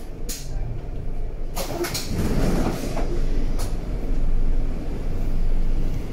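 A3L71 U-Bahn train heard from inside the car: a steady low rumble, with a sharp click just after the start and a louder clattering knock from about one and a half to three seconds in, then another click.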